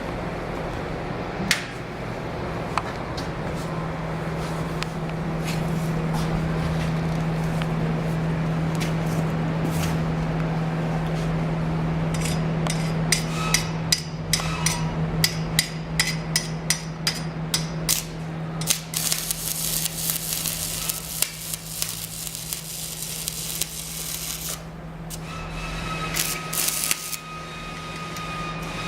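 Miller CP-252TS welding power source humming steadily while stick welding. About halfway in, a run of sharp cracks is heard as the electrode is struck. A crackling, sizzling stick-welding arc follows, breaks off briefly, then starts again.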